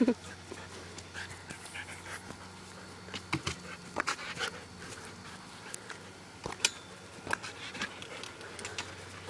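A dog panting as it jumps at a swinging tetherball, with scattered sharp knocks and taps from the play.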